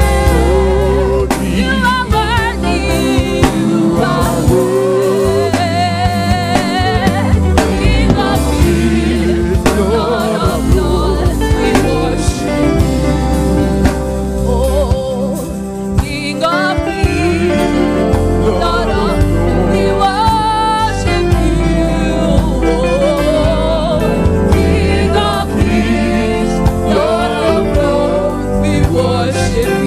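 Gospel choir and lead vocalists singing a worship song over a live band with bass and drums.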